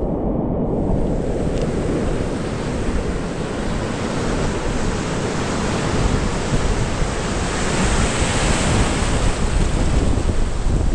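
Ocean surf breaking close by, with foamy wash rushing and hissing over the sand at the water's edge; the hiss of the wash swells about two-thirds of the way through.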